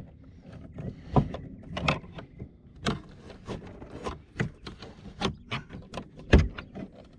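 Irregular clicks, taps and knocks of a screwdriver prying and working at the plastic trim of a Porsche Panamera's rear door panel, with one louder thump a little before the end.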